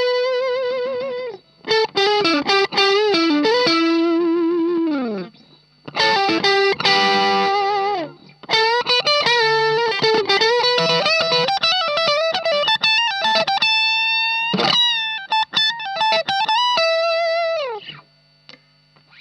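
Electric guitar, a Fender Stratocaster, played through an Ibanez Tube Screamer Mini overdrive pedal into a Marshall MG15 amp. It plays a lead line of held, overdriven notes with vibrato, string bends and slides down the neck, in phrases with short breaks. The playing stops shortly before the end.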